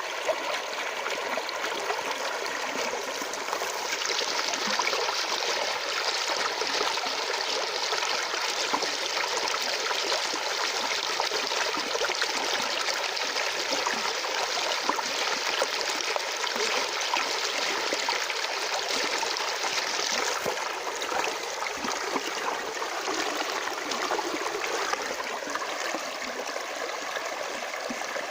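Water of a natural stream flowing steadily, a continuous even rush of running water, a little brighter for a stretch in the middle.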